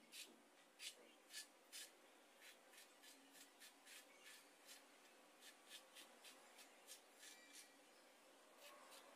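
Faint, quick scratchy strokes, about two or three a second, of a small plastic spoon pressing and scraping rangoli powder into petal shapes on a board. The first few strokes are the loudest.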